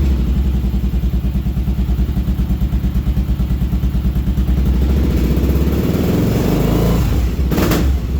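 Kawasaki KLR single-cylinder motorcycle engine running roughly, its level pulsing unevenly instead of settling into a steady idle. About six seconds in, the engine note rises as it is revved, and there are two short bursts near the end. The bike won't idle properly, a fault the owner traces to a gunked-up carburetor and a wrongly set pilot screw.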